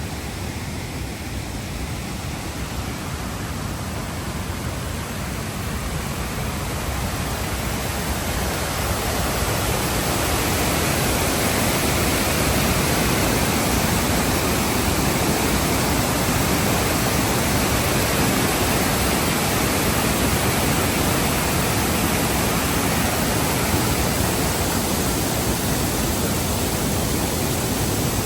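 Wind rushing over the microphone of a moving Can-Am Spyder three-wheeler: a loud, even hiss with no engine note standing out. It builds over the first ten seconds or so as the ride picks up speed, then holds steady.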